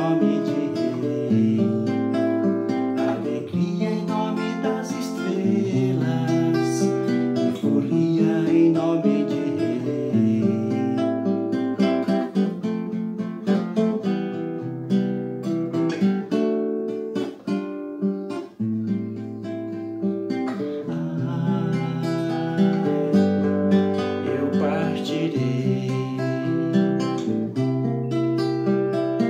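Nylon-string classical guitar played solo, fingerpicked chords and melody over a bass line that steps from note to note.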